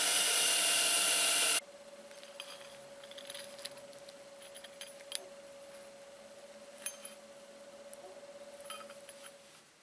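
Cordless drill with a step drill bit boring through a small steel bracket, a loud steady whine that stops abruptly about a second and a half in. Then small steel parts clink lightly now and then as the drilled brackets and bolt are handled.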